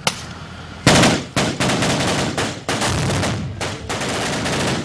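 A loud bang about a second in, then rapid bursts of automatic rifle fire during a simulated assault on a building.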